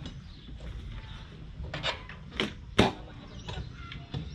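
A helmet being lifted out of and handled at a motor scooter's seat: rubbing and a few sharp knocks, the loudest about three seconds in.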